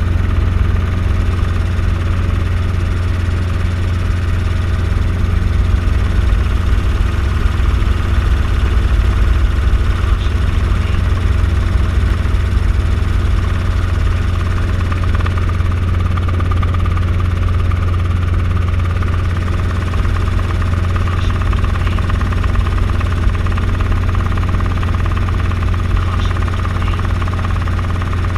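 Light helicopter in flight heard from inside the cockpit: steady drone of engine and rotor with a strong low thrum.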